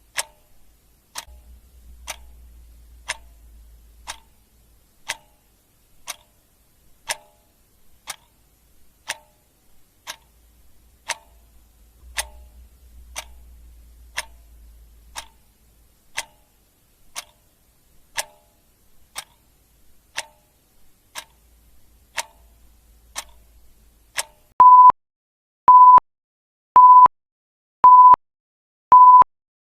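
Clock ticking once a second. About 24 seconds in, the timer alarm goes off: a loud electronic beep at a single pitch, repeating about once a second, five times, to mark the end of the countdown.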